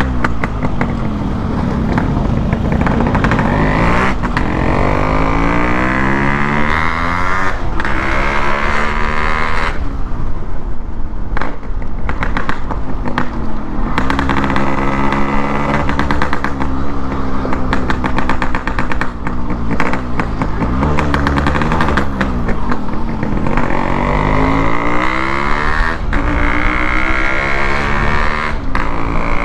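Yamaha RX100's single-cylinder two-stroke engine running as the bike is ridden, its revs climbing and falling several times, with brief dips between the climbs.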